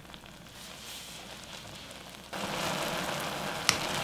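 Black beans simmering in a soy-sauce and sugar glaze in a small saucepan, reducing with a steady crackling bubble that gets suddenly louder about two seconds in. A single sharp knock of the wooden spoon against the pot near the end.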